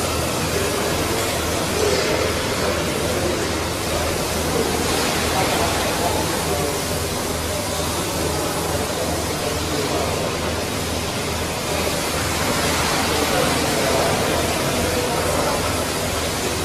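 Steady machine noise, a loud even hiss with a low, regular throb underneath.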